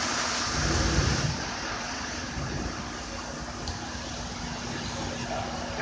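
Steady vehicle rumble and hiss with a faint low hum, louder for a moment about a second in.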